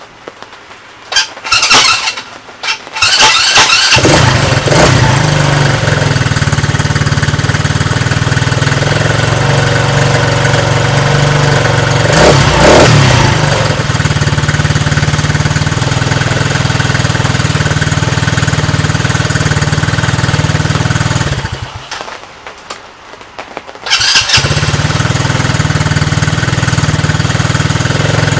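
A Coleman Scrambler 125 ATV's small single-cylinder four-stroke engine is cranked and catches about four seconds in, then runs steadily with a brief rev about twelve seconds in. It stops about twenty-one seconds in and is started again a couple of seconds later, running on steadily. It is running on a newly fitted carburetor that replaced one ruined by varnished old fuel, which had caused the no-start.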